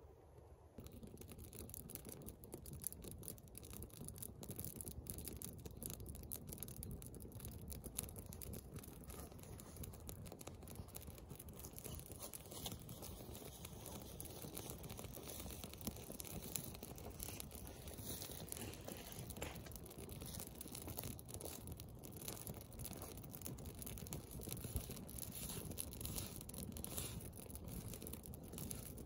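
Campfire of split wood and kindling catching and burning: a steady rush of flame with frequent small crackles and pops, starting abruptly about a second in.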